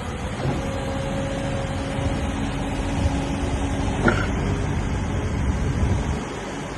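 Wacker Neuson EZ50 excavator's diesel engine running, with a steady whine over it from about half a second in until about four seconds, ending in a sharp clunk.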